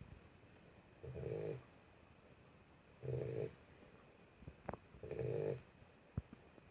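A sleeping Boxer puppy snoring: three short snores about two seconds apart, each lasting about half a second.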